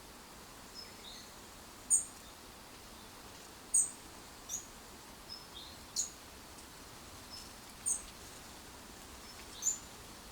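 Small birds giving short, high, sharp chirps, one every second or two, over a steady faint hiss of outdoor background noise.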